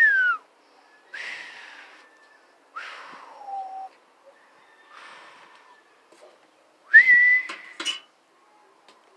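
A person imitating an eagle's cry with breathy, whistled calls: about four short cries, one gliding down in pitch, the loudest near the end with a few sharp clicks after it.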